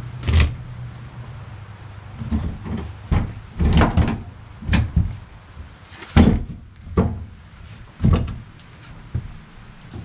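Irregular wooden knocks and thumps, about a dozen in all, as a heavy log chunk is shifted and set by hand on a portable sawmill's bed; the loudest comes about six seconds in.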